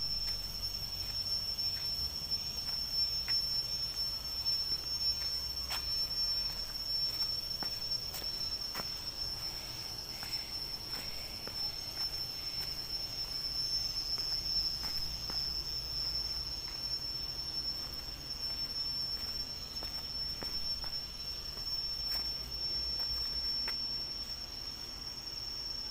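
Insects in the trees keeping up a steady, high-pitched drone, with a low rumble and a few faint ticks underneath.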